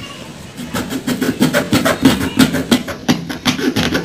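Serrated saw blade sawing back and forth through the leather cover and stitched seam of a four-piece leather cricket ball, a fast run of rasping strokes, several a second, starting about half a second in.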